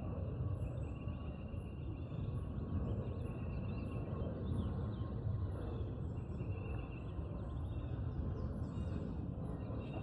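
Steady creekside outdoor background: a low rushing noise, probably the flowing creek, under a high steady buzz with faint even ticks, and a few short chirps near the end.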